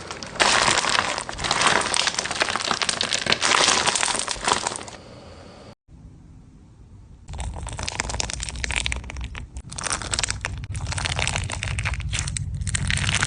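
Crunchy blockbead slime being squeezed and pressed by hand, with dense crackling and crunching as the beads pop and shift. About five seconds in the sound drops off into a brief quiet gap, then the crunching picks up again with soft low thuds of hands pressing the slime.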